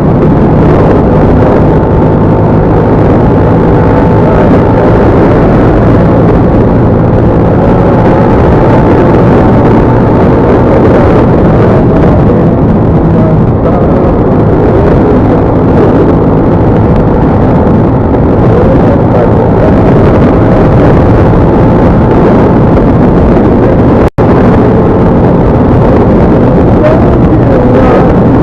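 Loud, steady vehicle engine and road noise while on the move, with a hum of engine tones and some wind buffeting; the sound cuts out for an instant about 24 seconds in.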